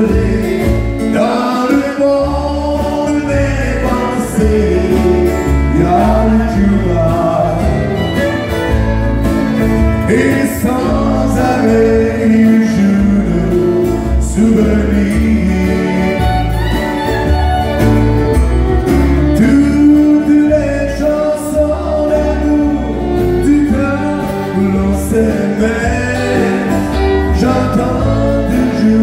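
Live country music: a man singing over strummed acoustic guitars, with a fiddle playing along.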